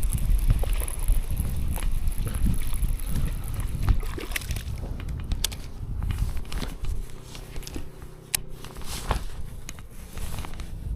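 Wind buffeting the microphone, a loud uneven rumble that eases after about five seconds, with scattered sharp clicks and knocks of handling.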